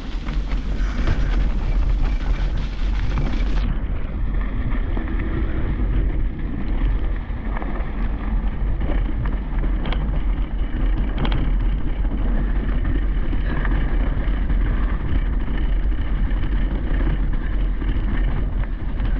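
Wind buffeting a handlebar-mounted GoPro on a mountain bike rolling down a dirt trail, a steady rumble with a few sharp knocks from the bike over bumps.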